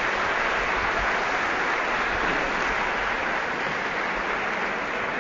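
Audience applauding, a steady wash of clapping that eases off slightly near the end.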